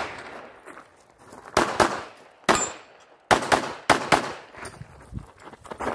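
Pistol shots: a quick pair about a second and a half in, a single shot a second later, then a fast string of shots from a little past three seconds in, each with a short echo.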